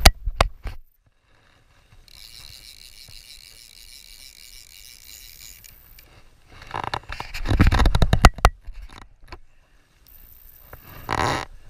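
Hands handling the camera and fishing gear right at the microphone: close scraping and clicking in bouts near the start, in the middle and briefly near the end.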